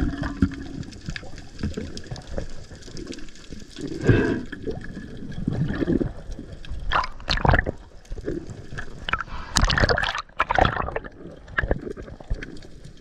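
Water gurgling and bubbling heard underwater, in irregular surges, with louder bursts about seven seconds in and again around ten seconds.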